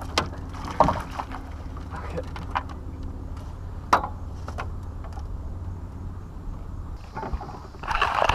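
A catfish being netted into a small fishing boat: sharp knocks as the long-handled landing net bumps the boat, over a steady low hum.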